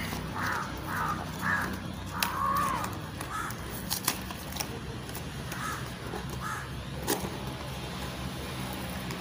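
Crows cawing in a string of short calls, with a few sharp clicks and taps as a small cardboard box is handled and pulled open.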